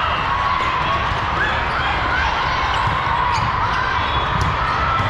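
Ambience of a large hall during indoor volleyball play: a few sharp ball hits and scattered squeaks and voices over a steady low rumble.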